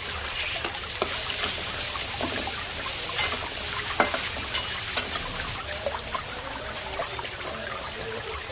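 Kitchen cooking sounds: a steady hiss with scattered small clicks and clinks, and two sharper knocks about four and five seconds in.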